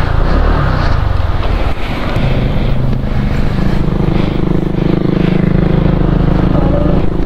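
Motorcycle engine running with a steady low note that steps up slightly about three seconds in, under a rushing noise.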